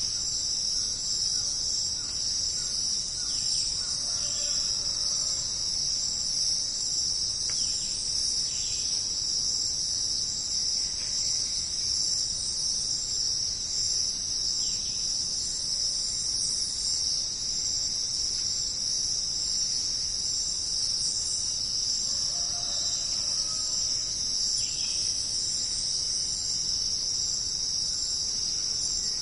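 A dense, steady chorus of jungle insects: a continuous shrill high-pitched drone, with occasional faint bird calls.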